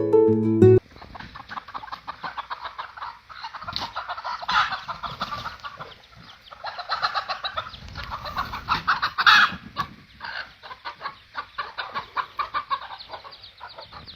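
Chickens clucking: many short calls in quick succession, with a couple of louder ones about a third of the way in and again past the middle.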